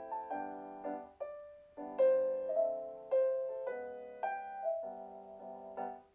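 Gentle background piano music: a slow melody of single struck notes over soft chords, each note ringing and fading.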